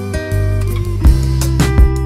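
Background music with guitar, a steady beat joining about a second in.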